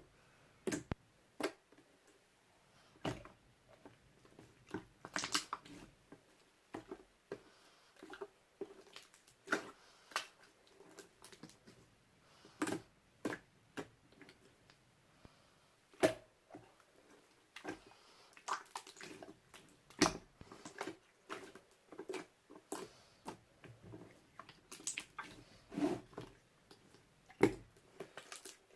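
Irregular sharp clicks and taps, one to three a second and sometimes in quick clusters, in a small room.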